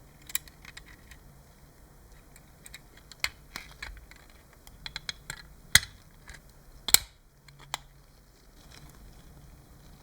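Irregular light clicks and taps of hand tools and small parts being handled, with two sharper knocks about six and seven seconds in.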